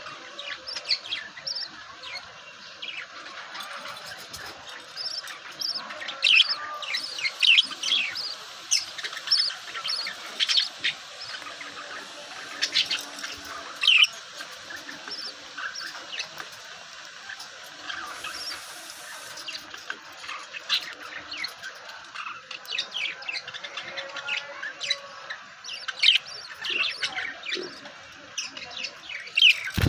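Birds chirping: many short, high chirps in quick irregular runs, with no pause longer than a moment.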